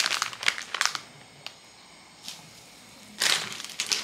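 Plastic instant-ramyeon packet crinkling as it is handled and opened over a griddle of boiling water, in loud bursts during the first second and again about three seconds in. A faint steady hiss of the boiling water lies between the bursts.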